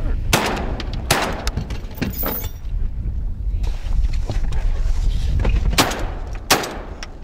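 Shotgun shots fired at passing sea ducks: two sharp shots close together within the first second or so, then two more near the end.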